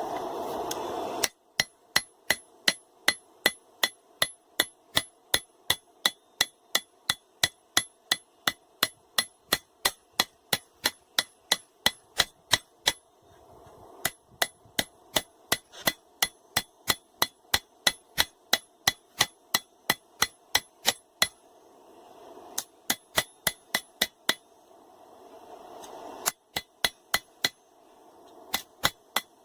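Hand hammer striking hot steel on an anvil, forging out a blade, about two and a half blows a second, each with a bright metallic ring, in several runs with short pauses. A steady rushing noise runs before the first blows and swells in the pauses.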